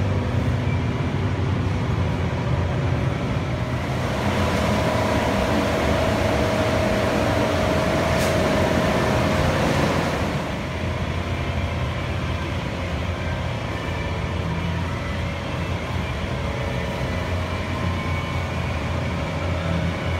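Steady low hum and rush of air from a paint booth's ventilation fans, with a louder hiss from about four to ten seconds in.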